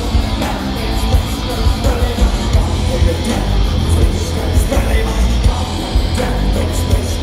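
A thrash metal band playing loud live music, recorded on a phone from among the crowd, the sound dense and heaviest in the deep bass.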